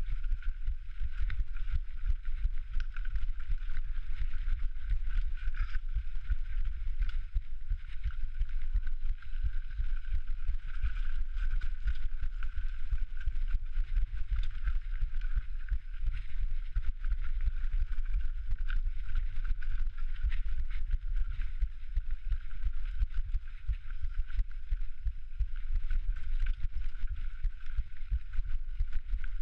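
A rider's heartbeat picked up by a body-worn microphone, as steady low thumping, with a constant thin hum over it.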